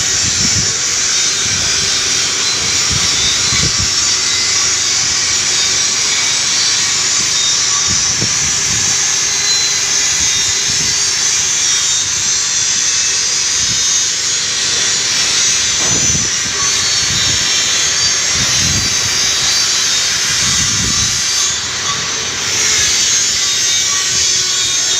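Steady, loud hissing noise from metalworking machinery, with a few dull low thumps scattered through it.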